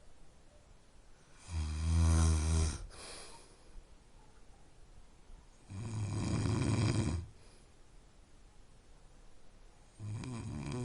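A person snoring: three snores about four seconds apart, each a low, pitched snore lasting a second or so. The last one starts near the end.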